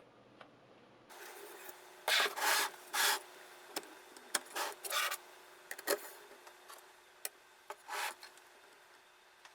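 Diamond sharpening stone on a guided knife sharpener scraping along a knife blade in a few short, irregular strokes, with small sharp clicks in between.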